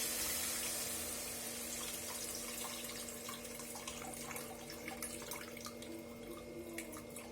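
Tamarind water poured into a hot pan of sautéed thuthuvalai leaves, onion and tomato, hissing loudest at first and easing off into a simmer with small scattered pops. A steady low hum runs underneath.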